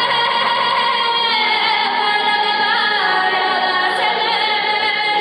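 A woman singing a Buryat national song into a microphone, in long held notes that slide in pitch between them.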